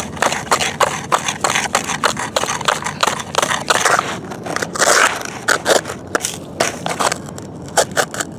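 Gritty crunching and scraping in dirt and gravel: a quick run of crunches, about four a second, with a denser scrape about five seconds in and sparser crunches after.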